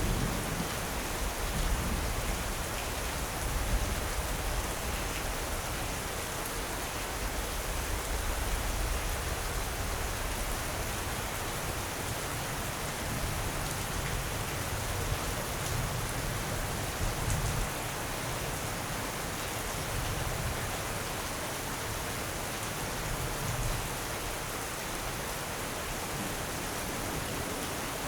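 Steady rain falling, an even hiss of drops on surfaces. A low rumble of thunder dies away in the first few seconds.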